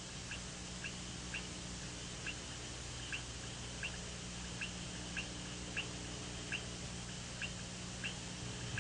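Faint, short high-pitched chirps from a small animal, repeating irregularly about once a second, over a steady low hum and hiss.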